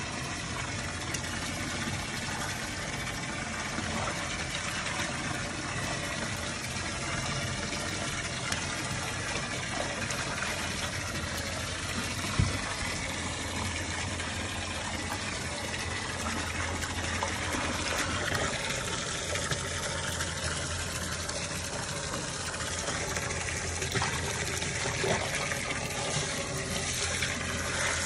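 Water splashing and sloshing in a shallow plastic tub as a chimpanzee scrubs its hands in soapy water, over a faint low hum, with one sharp knock about twelve seconds in.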